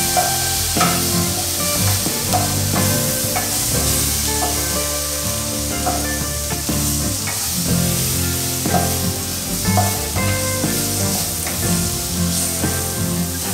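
Chopped tomatoes and onions sizzling in oil in a nonstick kadai, with a wooden spatula stirring and scraping the pan in short strokes, over steady background music.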